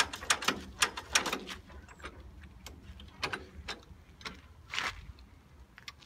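Cold 1930s Fordson tractor engine being hand-cranked without catching: irregular metallic clanks and clicks from the starting crank and engine. They come several a second at first, then more sparsely.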